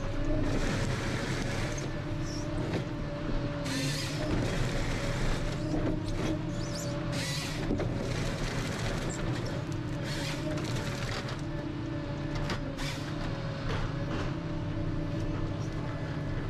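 Ponsse Scorpion King forest harvester at work: the engine and hydraulics run steadily with a wavering whine. Several short crashing, rustling bursts break in as the H7 harvester head handles and saws timber.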